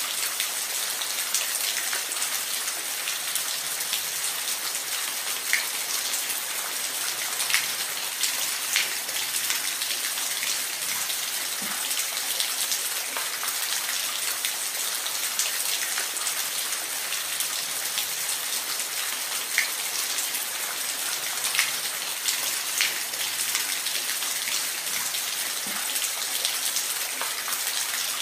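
Steady rain falling in a forest, an even hiss with scattered louder drops ticking on nearby surfaces.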